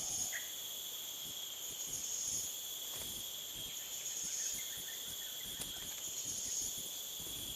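Chorus of insects chirring: a steady high buzz that swells and fades every couple of seconds, with a few faint taps underneath.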